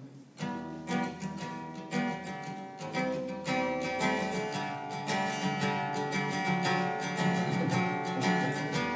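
Solo acoustic guitar strummed in chords, starting about half a second in, with no singing yet.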